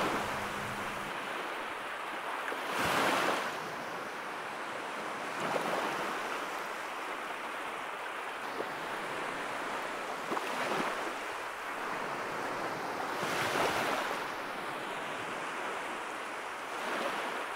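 Ocean surf washing on a beach: a steady hiss of water that swells louder as waves come in, most strongly about three seconds in and again about thirteen seconds in.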